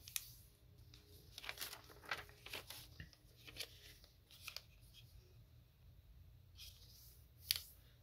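Origami paper being folded and creased by hand: faint, scattered rustles and crisp scrapes as fingers press and run along the folds, with a sharper crease stroke near the end.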